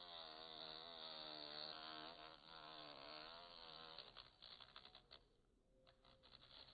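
A bee buzzing inside a poppy flower, its buzz wavering slightly in pitch. About four seconds in the buzz stops and gives way to faint scratchy clicks as it works among the stamens.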